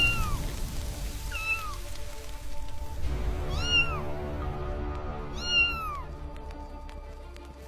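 A kitten meowing four times in short, high calls that rise and fall in pitch, each about 1.5 to 2 s apart; the last is the loudest.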